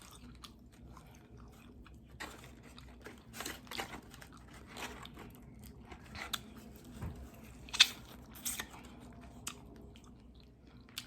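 Close-up chewing and biting of crispy fried chicken wings: irregular crisp crunches spaced a second or so apart over steady mouth sounds, the loudest crunch about eight seconds in.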